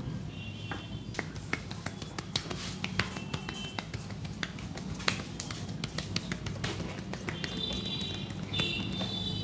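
Sharp, irregular taps and clicks of a barber's hands working on a head and neck during a massage, over a steady low background hum.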